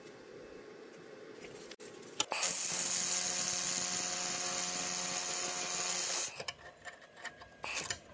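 700 W fiber laser welder (XLaserlab X1 Pro) welding steel: a loud steady hiss with a low hum under it starts about two and a half seconds in and cuts off suddenly about four seconds later. A few short clicks and knocks follow.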